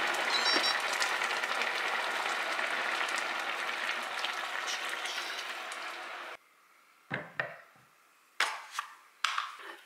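Ramen broth boiling hard in a cast-iron pot, a dense bubbling hiss that cuts off about six seconds in. A few short knocks and clunks follow as the heavy pot is set down on a wooden trivet.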